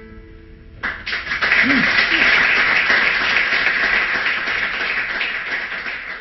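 The final guitar chord rings away, then about a second in a small audience breaks into steady clapping and cheering, with a short shout in it.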